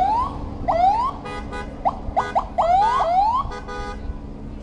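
A car alarm cycling through its tones: repeated rising whoops, quick chirps and bursts of a steady tone, over the low drone of a helicopter flying away overhead.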